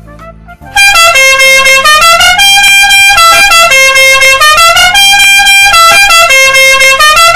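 Multi-tone musical air horn, the Indonesian 'telolet' bus horn kind, playing a loud melody of held chords that step up and down in pitch. It starts about a second in.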